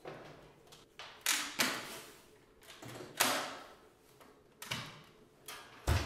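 Dyson V7 cordless vacuum's bin-emptying mechanism being worked: about half a dozen sharp plastic clacks and rattles, each fading quickly, as the cyclone is pulled up and the clear bin's base drops open to let the dirt fall into a pedal bin. Near the end comes a deeper thump as the metal bin lid drops shut.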